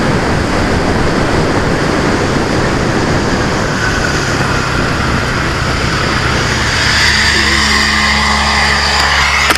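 Small 125cc motorcycle engine running under way, with heavy wind rush over a helmet-mounted camera; about seven seconds in the engine settles into a steady, even note.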